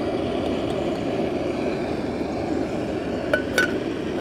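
Small screw-on gas canister stove burning at full blast, a steady hiss of the burner flame. About three and a half seconds in, two light metallic clinks as the cook pot's metal handles knock against it.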